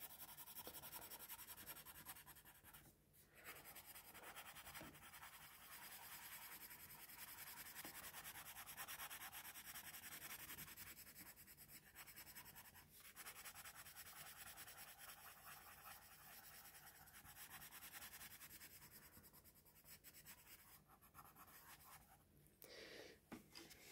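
Faint scratching of a coloured pencil on paper in quick back-and-forth shading strokes, with a few short pauses.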